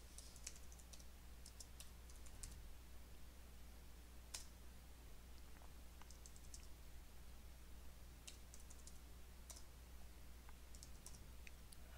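Faint computer keyboard typing: short key clicks in small bursts with pauses between them, over a steady low electrical hum.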